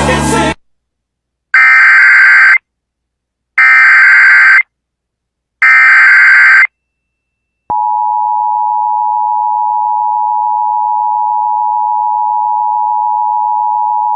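Emergency Alert System activation: three identical one-second bursts of SAME digital header data, a harsh buzzing warble, about a second apart, then the steady two-tone EAS attention signal from about eight seconds in. The tones open a National Weather Service severe thunderstorm warning.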